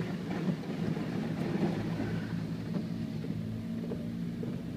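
Car engine running steadily as the car pushes through deep floodwater covering the road, with a rushing water-like noise under it. The engine note edges up slightly in the second half.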